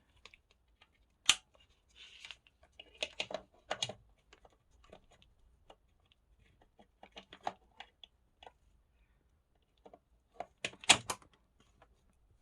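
Scattered clicks, taps and rustles of the hand air massager and its parts being handled. There is one sharp click about a second in, and the loudest burst of clicking comes near the end.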